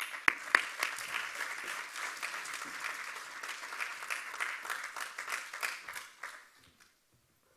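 Audience applauding, starting suddenly and dying away about six and a half seconds in.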